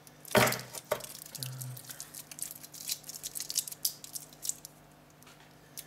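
Stainless-steel link bracelet of a Seiko quartz chronograph being handled and fastened: one sharp metallic click about half a second in, then a run of light clicks and rustles as the links move and settle on the wrist.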